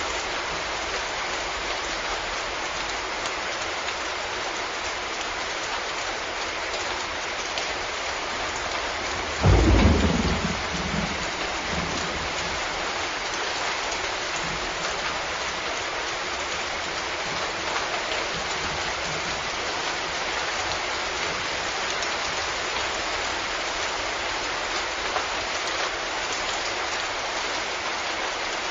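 Steady rain, with one sudden loud thunderclap about a third of the way in that rumbles away over a couple of seconds.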